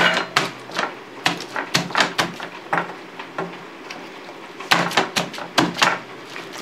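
Wire potato masher pounding soft avocado on a plastic cutting board: a run of irregular knocks, a few a second, with a short lull in the middle.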